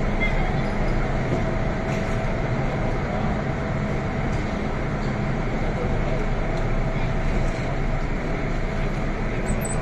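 Cabin noise inside an MTR Kwun Tong Line M-Train, a Metro-Cammell electric multiple unit: a steady rumble and hum with a faint steady tone above it.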